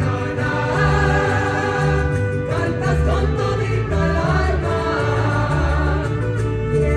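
Live mariachi ensemble playing: violins and guitars over a pulsing low bass line, with several voices singing together.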